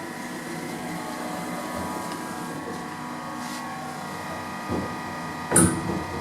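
Passenger lift travelling upward, heard from inside the car: a steady hum with several thin steady tones, and a short knock near the end.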